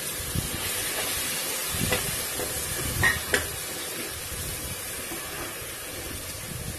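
Chopped tomatoes and onions sizzling in hot ghee in an aluminium pressure cooker, stirred with a metal slotted spatula. The spatula scrapes and clicks against the pot a few times, around two and three seconds in.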